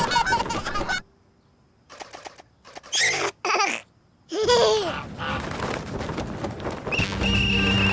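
Cartoon baby's voice laughing and babbling in short, high-pitched bursts separated by brief silences.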